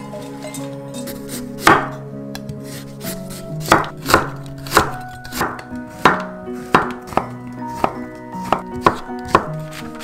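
Kitchen knife slicing zucchini on a wooden cutting board: about a dozen sharp, uneven knocks, each cut ending on the board, starting about two seconds in.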